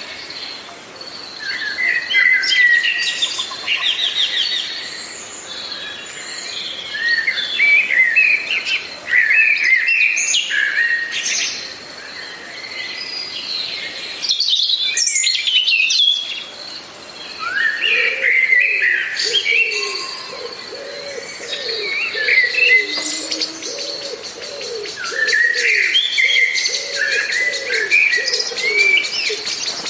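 Several songbirds singing in short phrases over a steady high-pitched tone. In the second half a low note repeats over and over for about ten seconds.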